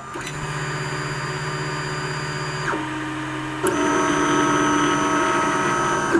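Anycubic i3 Mega 3D printer running its first print: the stepper motors' steady whine over the fans, a bit loud. The tones step down in pitch a little under 3 seconds in and jump louder to a new set about a second later as the moves change.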